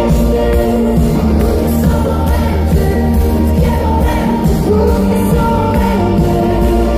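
Live pop-rock band playing, with a woman singing the lead vocal.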